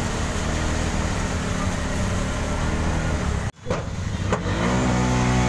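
A motor vehicle's engine running steadily. The sound cuts out suddenly for a moment about three and a half seconds in.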